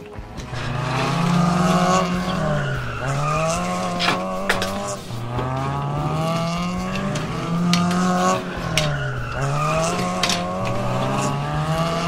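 Race-car engine sound revving up and dropping back several times, with tire squeals.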